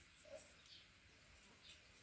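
Near silence with a few short, faint bird chirps.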